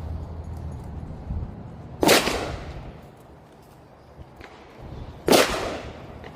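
Two gunshots, about three seconds apart, each trailing off in reverberation, over a low steady range background.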